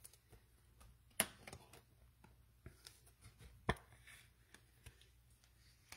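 Trading cards being handled and set down: faint clicks and rustles, with two sharper taps about two and a half seconds apart.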